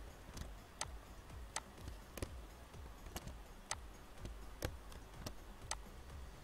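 Sharp, irregular clicks of a computer mouse and keyboard, about one every half second to a second, as shortcuts are keyed and objects clicked, over a faint low hum.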